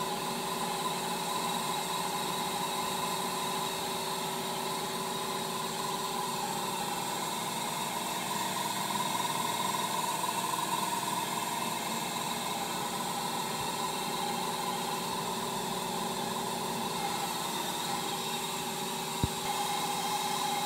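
Steady hum of a running vintage computer's cooling fans and electronics, with a few steady whining tones over even noise. One sharp click near the end.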